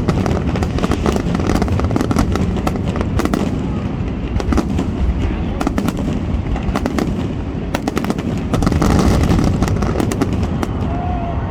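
Fireworks finale: a rapid, dense run of bangs and crackling over a continuous low rumble, thinning out near the end.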